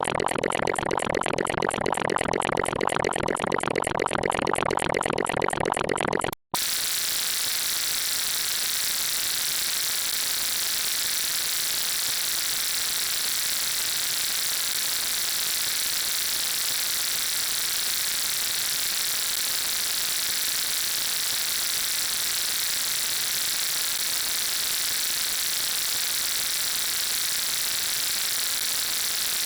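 Dense, rapidly pulsing electronic noise that cuts out abruptly about six seconds in, then a steady high hiss like static.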